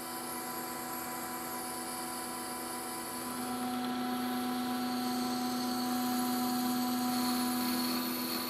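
Metal lathe running with a steady hum while a boring bar cuts inside the bore of a turned workpiece; about three seconds in a stronger steady tone comes in and the sound grows a little louder as the cut takes hold.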